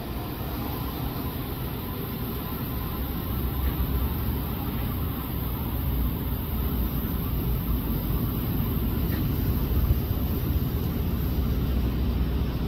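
Shore Line East electric multiple-unit train moving off along the track, a steady low rumble with hiss.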